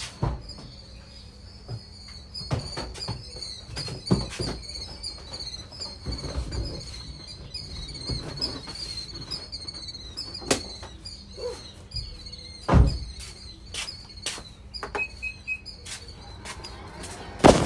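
Scattered thuds and knocks as luggage is loaded into a car's open boot, the loudest about two-thirds of the way in, while a bird chirps rapidly and steadily in the background until about then.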